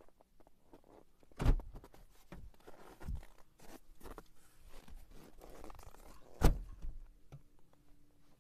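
Footsteps and rustling handling noise in snow beside a car, broken by two loud thumps about five seconds apart.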